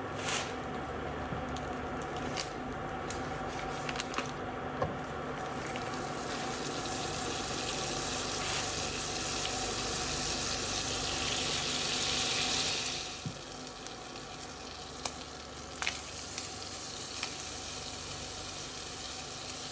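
Butter and oil sizzling in a hot cast-iron skillet, the sizzle building to its loudest about two-thirds of the way through and then falling off. A few light clicks of a utensil against the pan.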